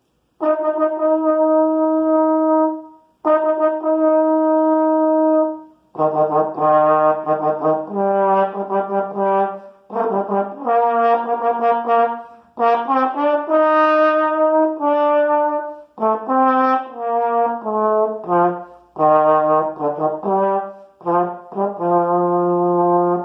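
Besson 639 trombone playing a well-known march: two long held notes, then a quicker melodic line of shorter notes. The tone is bright and strident.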